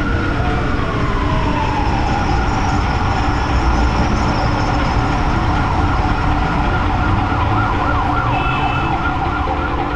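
Emergency-vehicle siren over a low traffic rumble: its wail slides down over the first two seconds, then holds high with a fast warbling yelp in the second half.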